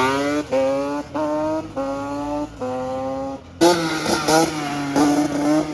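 Yamaha sport ATV engine pulling hard, its pitch climbing in five short steps with a brief dip between each, as when a rider accelerates through the gears. At about three and a half seconds a louder engine sound cuts in suddenly and revs in several short blips.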